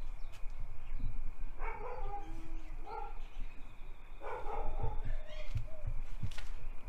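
A dog barking and yipping in a few short bursts over a low rumble.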